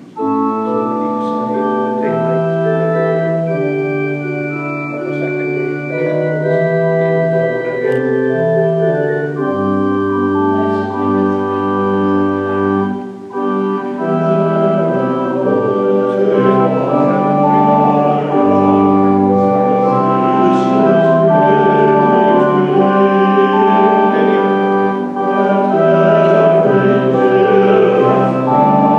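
Church organ playing slow, sustained chords, starting abruptly and moving from chord to chord, with deep bass notes coming in now and then.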